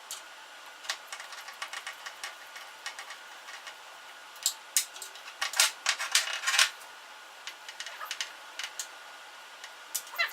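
Irregular light clicks and clinks of hand tools and small metal parts being handled, busiest in the middle.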